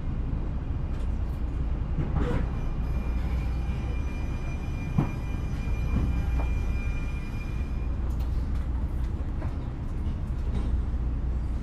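Passenger train running, with a steady low rumble. A thin high whine is held from about three to eight seconds in, and a few sharp knocks are heard, the loudest about five seconds in.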